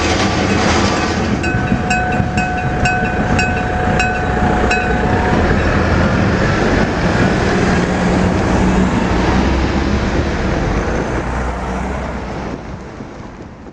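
A train passing over a level crossing, a steady rumble with wheel clatter. For a few seconds, starting about a second and a half in, the crossing's electric warning bell strikes about three times a second over it. The train noise dies away near the end.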